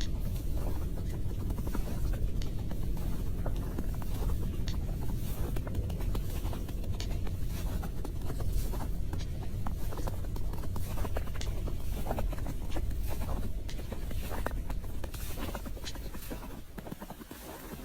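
Steady low rumble with many small scattered clicks and scratching sounds; the rumble eases off near the end.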